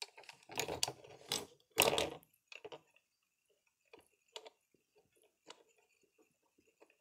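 Plastic Lego bricks being handled and pressed onto a baseplate. A rustling clatter runs for the first two seconds, then only scattered small clicks.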